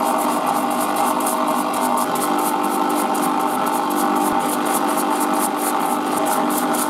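A parts washer's pump running with a steady hum while cleaning fluid streams from a flow-through brush. The bristles scrub metal rivet-hammer parts in quick, scratchy strokes.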